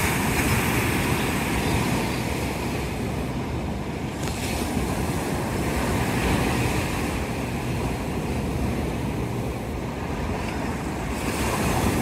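Ocean surf breaking and washing up a sandy shore, a steady rushing that gently swells and eases with the waves, with wind buffeting the microphone.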